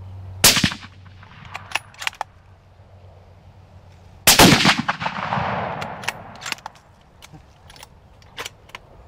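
Two rifle shots about four seconds apart during a coyote hunt. The second is louder and rolls away in a long echo across the open field, and a few light clicks come between and after the shots.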